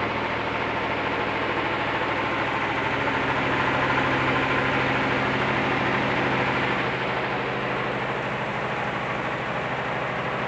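Washing machine running with a loud, steady drone like an airplane in flight, swelling a little about halfway through.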